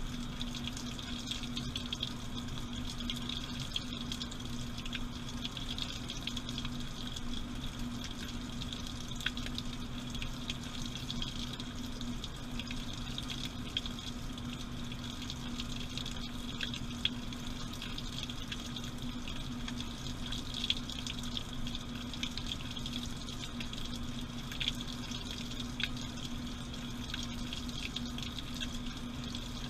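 Washing machine running with water rushing and sloshing in the drum, over a steady low hum, heard from inside the machine. A few light ticks come through now and then.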